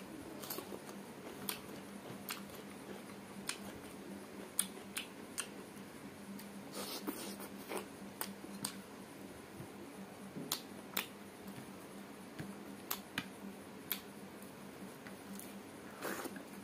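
Close-miked mouth sounds of someone eating by hand: irregular sharp wet clicks and smacks of chewing, a few every second, over a faint steady hum.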